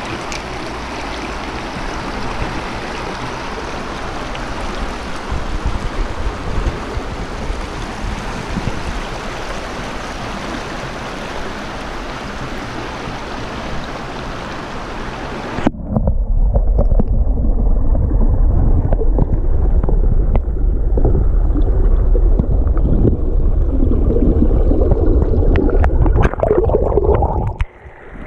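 Shallow river rapids rushing over rocks, a steady hiss of water. About halfway through, the sound suddenly turns muffled and becomes a louder, deep rumble, and it briefly drops away near the end.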